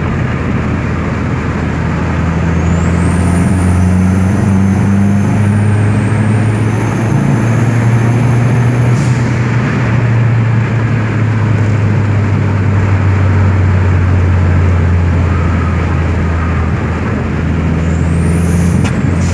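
Dodge Neon SRT-4's turbocharged 2.4-litre four-cylinder pulling under acceleration, heard from inside the cabin, its note climbing a little about three seconds in and then holding steady. A thin high whistle rises over it and stops abruptly about nine seconds in, and comes back briefly near the end.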